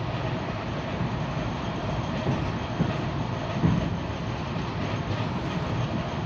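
Suburban electric train (elektrichka) running along the track: a steady rumble of the moving train with a few knocks of the wheels over rail joints.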